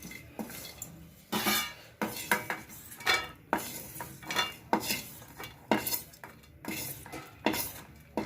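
Spoon stirring dried lesser galangal (sitharathai) pieces in a dry pan, scraping against the pan in short strokes about once a second as the root is dry-roasted on low heat.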